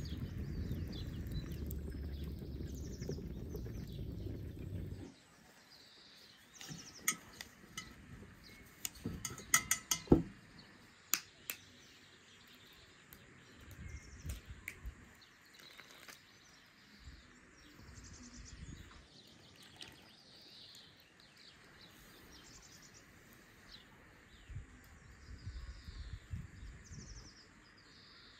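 A wood fire burning steadily for about the first five seconds, then it stops and birds chirp in the background. From about seven to eleven seconds in comes a run of sharp clicks and taps as eggs are cracked on an enamel bowl, the loudest about ten seconds in.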